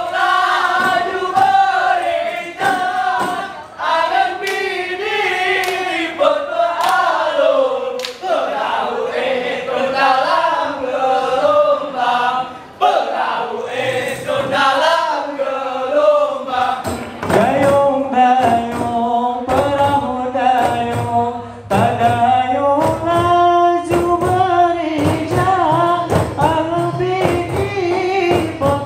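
Group of male voices chanting a Rapa'i Geleng song in unison, with rapa'i frame drums struck in rhythm. The drum strikes come thicker and faster from about halfway through.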